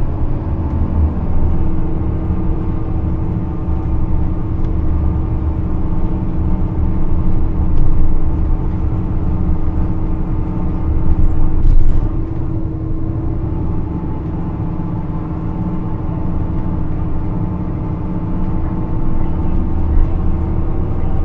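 Running noise of a Nissan Diesel KC-RM211GSN bus with an FE6E diesel engine and a JATCO three-speed automatic: a steady, loud engine drone with a steady whine above it from about a second in. This bus is noted for an abnormal, ferocious running noise. The sound swells twice, about eight and twelve seconds in, then eases off.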